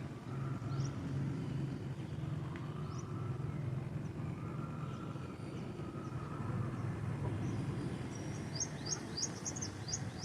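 Steady low hum of city traffic with a bird's short, high chirps over it: a few single chirps early and a quick run of them near the end.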